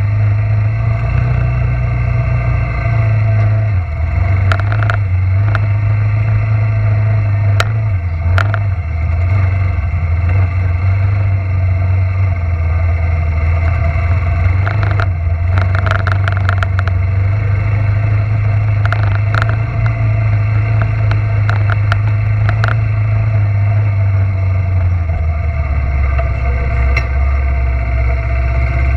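Suzuki Quadrunner LT300 ATV engine running under way, a steady low drone that drops and rises in pitch a few times as the throttle changes. Scattered sharp clicks and rattles come through at intervals.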